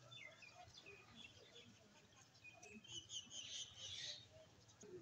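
Small birds chirping faintly, many short high chirps that come thickest about three to four seconds in.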